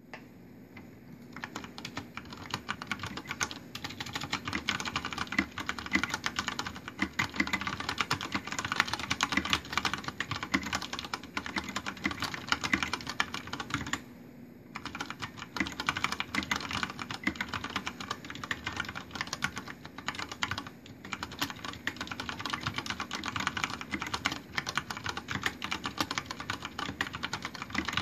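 Continuous fast typing on a Deck Francium Pro mechanical keyboard with brown tactile switches and Vortex PBT keycaps: a dense run of key clacks that pauses briefly about halfway through.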